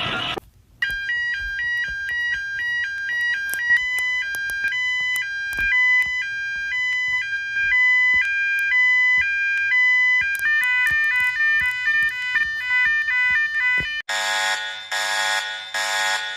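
Synthesized emergency-alert alarm tones: electronic beeps alternating between two pitches in a repeating pattern about twice a second, switching about ten seconds in to a faster pattern with more tones. Near the end a harsher, lower buzzing alarm tone pulses about three times.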